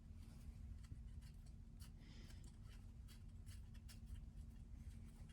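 Faint light clicks and soft scraping of small carburetor parts being handled and fitted during reassembly, over a steady low hum.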